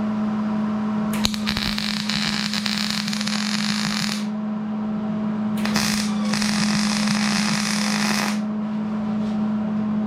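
Electric arc welding on a metal railing: two bursts of crackling hiss, each about three seconds long, the first starting about a second in and the second near the six-second mark, over a steady low hum.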